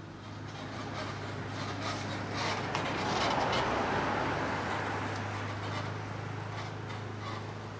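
A car driving past close by: tyre and road noise swells to a peak about three seconds in, then fades as it moves away, over a steady low hum.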